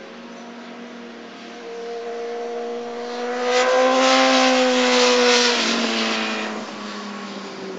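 Racing sport motorcycle engine at speed on a track, growing louder as the bike approaches. It is loudest about four to five seconds in, then drops sharply in pitch as the bike goes past and fades away.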